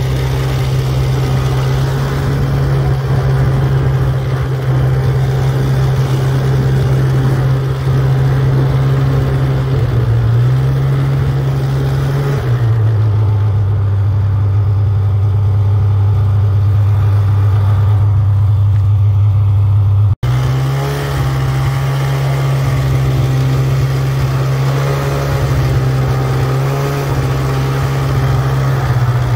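Snowmobile engine running steadily while towing snow tubes on a rope. Its pitch drops about twelve seconds in, then, after a brief break, comes back at the higher pitch.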